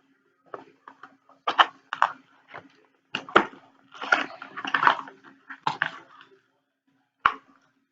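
Cardboard box and packing material being handled and torn open: irregular crinkling and rustling with sharp clicks, busiest in the middle, over a faint steady hum.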